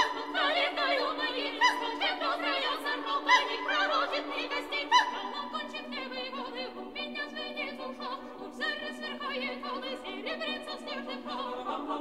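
Mixed choir singing a cappella, with high voices in quick wavering figures over a held chord; loudest in the first five seconds, then softer.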